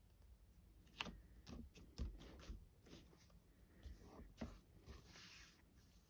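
Faint handling of card stock: a few light taps and a brief soft paper rustle as fingers press and smooth a mounted card panel onto a card base.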